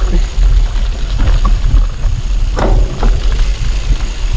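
Wind buffeting the camera microphone, a loud uneven low rumble, with a few light knocks.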